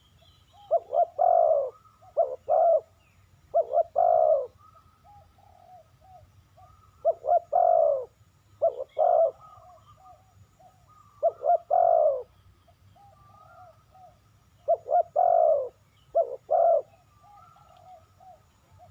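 Spotted dove calling: loud phrases of two to four low coos, repeated about every three to four seconds, with softer coos in between. A faint steady high tone runs underneath.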